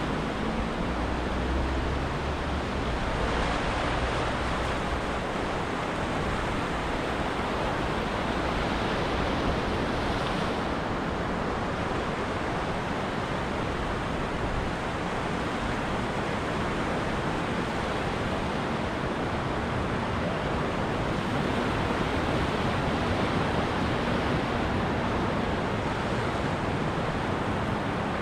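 Ocean surf washing onto a beach: a steady rush of breaking waves that swells a little now and then.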